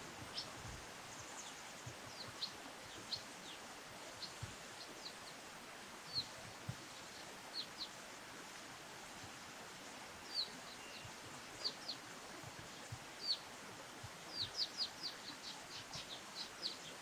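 Small birds giving short, high chirps, scattered at first and then in a quick run near the end, over a steady background hiss.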